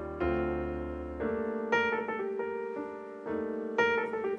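Background piano music, with single notes and chords struck every half second to a second, each dying away.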